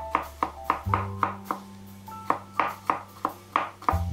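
A chef's knife mincing garlic on a cutting board: quick, even strokes of the blade against the board, about three or four a second with a short pause in the middle, over background music.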